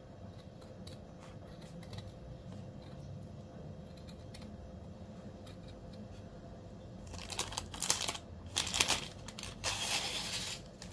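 Faint room tone at first. About seven seconds in, a few seconds of loud, irregular rustling and crinkling as crafting materials are handled close to the microphone.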